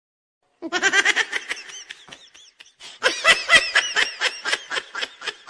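Laughter sound effects, one clip after another: a burst of rapid laughs starting about half a second in and fading away, then, after a brief pause, a second run of quick, pulsing laughs from about three seconds in.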